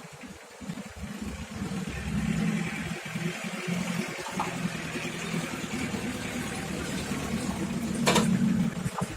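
An engine idling steadily, its low hum swelling about a second in and then holding, with a single sharp knock about eight seconds in.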